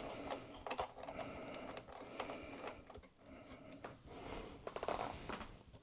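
Faint irregular clicks and light scraping of a small screwdriver backing a logic-board screw out of an iMac.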